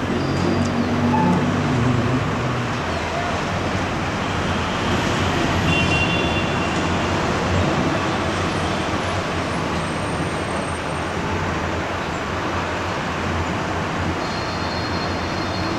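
Steady rush of distant road traffic, with no clear rises or breaks.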